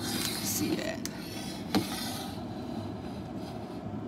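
Pull-out freezer drawer sliding on its rails: a low rumble with a click about a second in and a knock shortly after.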